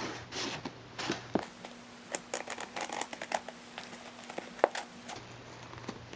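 Crinkling and rustling of a mail package being handled and worked open, with scattered short clicks and crackles.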